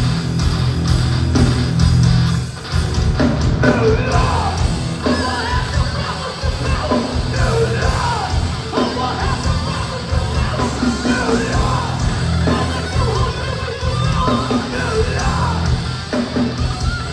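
A heavy hardcore or metal band playing live at full volume, with distorted guitars and pounding drums. Yelled vocals come in about three and a half seconds in and run on over the music.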